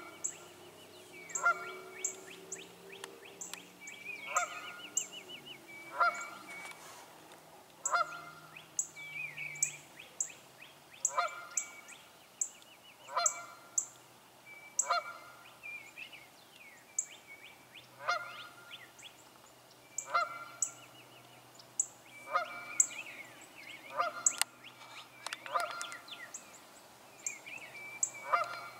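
A goose honking over and over, about once every second and a half, with smaller birds chirping and trilling in between.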